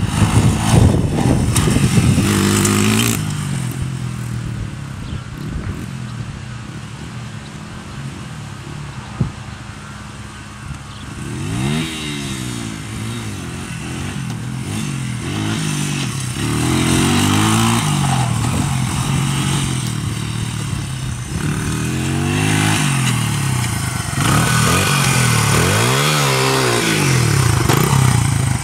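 Small dirt bike engine running as it is ridden, loud at first, then fainter for several seconds, then revving up and down again and again as the rider accelerates and backs off.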